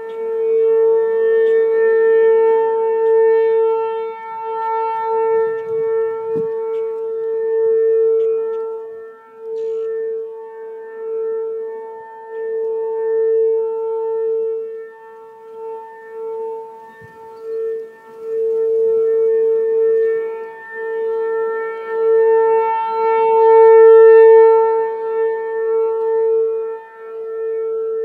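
ACA P-15 rotating outdoor warning siren sounding the steady Alert tone, one held pitch with overtones. Its loudness swells and fades every few seconds as the rotating head sweeps past.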